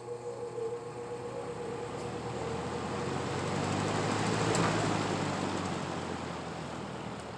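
Restored 1950s Western Auto Wizard box fan starting up: a motor hum and a rush of air that build as the blades come up to speed, loudest about four and a half seconds in and then settling slightly.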